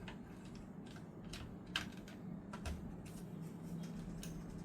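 Scattered light clicks and knocks of a graphics card and PC case parts being handled and pushed into place, over a low steady hum.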